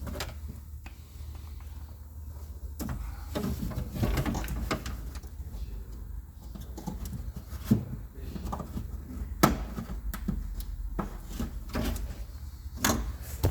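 Scattered clicks, knocks and rattles of hands working parts inside a car door while fitting a window regulator and motor, with two sharper knocks past the middle. A steady low hum runs underneath.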